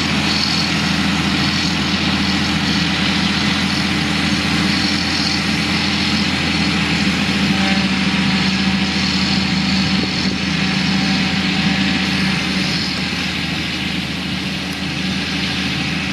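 Heavy earthmoving machinery's diesel engine running steadily, with a deep low hum under a broad engine noise; it eases off slightly near the end.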